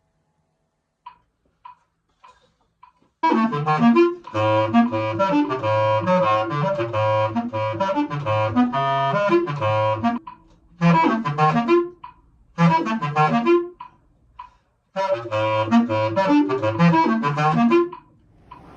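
Bass clarinet playing fast runs of low notes in several phrases separated by short pauses. The first few seconds hold only a few faint short sounds before the playing starts.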